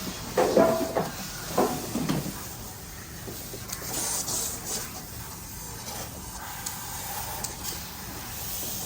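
Water hissing from a sprayer during a puppy's bath, with a few short clattering and rustling sounds in the first two seconds.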